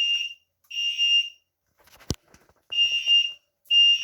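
Fire alarm horn sounding the temporal-three evacuation pattern: high-pitched beeps about a second apart, with a longer pause in the middle before the next set begins. A single sharp click falls in the pause.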